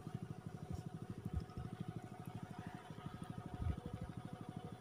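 A small engine running steadily with a fast, even putter, faint, with a soft low thump about three and a half seconds in.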